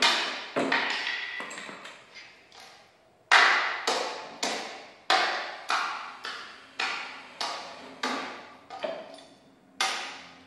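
Repeated hard knocks, about two a second, each ringing out briefly. There is a pause of about a second and a half early on, and the loudest knock comes just after it.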